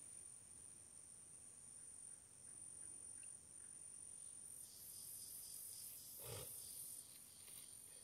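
Near silence with a faint, high-pitched insect chorus that grows louder from about halfway in, and one brief soft low thud about three-quarters through.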